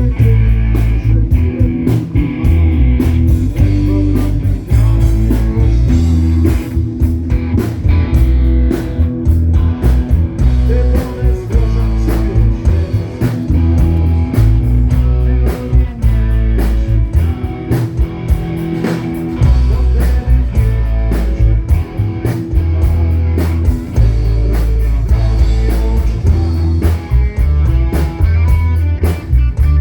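Live rock band playing an instrumental passage: guitar over bass and drums.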